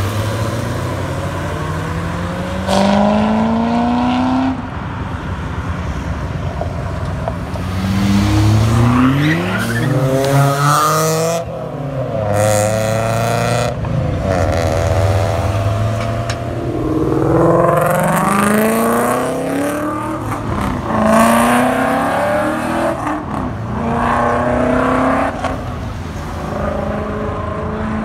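Cars accelerating hard one after another, each engine rising in pitch in sweeps that break and restart lower as it shifts; the first, a few seconds in, is a C6 Corvette's V8 pulling away.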